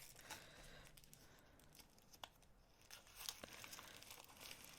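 Near silence. Faint crinkling of small plastic bags is handled, with a couple of soft clicks.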